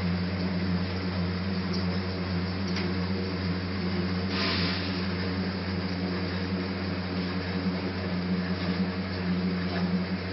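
Film rewinding machine running, printed packaging film travelling over rollers onto the rewind reel: a steady electric hum. A brief rustling hiss comes about four and a half seconds in.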